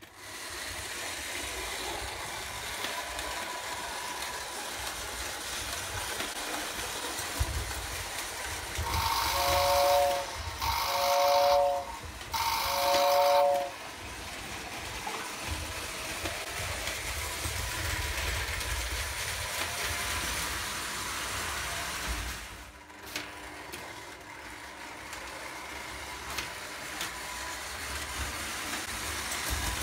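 Lionel O gauge toy trains running on a tinplate layout, a steady rumble of metal wheels on three-rail track. About nine to thirteen seconds in, a toy train's whistle gives three short blasts, each several tones sounding together.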